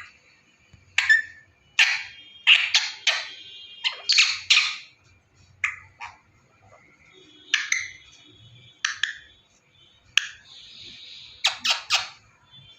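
Pet ringneck parrot giving harsh squawks and screeches in short bursts, some in quick runs of several calls, with pauses between them.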